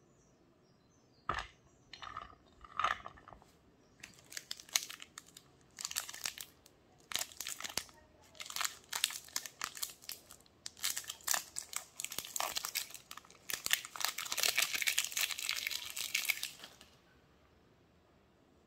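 A chocolate bar's foil-and-plastic wrapper being crinkled and torn open by hand. It starts as a few short crackles, then becomes dense, busy crinkling that grows thickest near the end before stopping suddenly.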